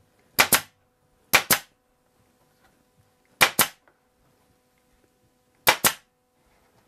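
Pneumatic upholstery stapler firing four times, each shot a sharp double crack, driving staples through the fabric into the chair's wooden seat rail.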